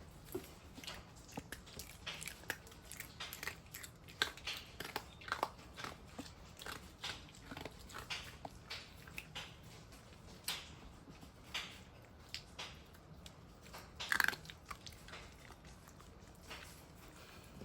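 Close-up chewing and crunching of food: irregular crisp bites and small clicks, with a louder cluster of crunches about fourteen seconds in.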